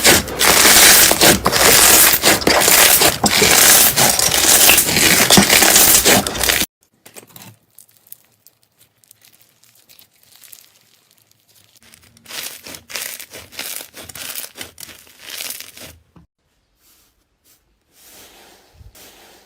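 Slime being worked, with loud, dense crackling for the first six seconds or so that cuts off abruptly, followed by much quieter, sparser crackling and squishing.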